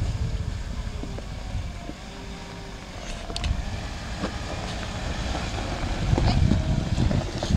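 Suzuki Jimny running at low revs as it crawls down a steep, rocky dirt track, with a few sharp clicks of stones under the tyres and wind rumbling on the microphone. It grows louder as it draws close, about six seconds in.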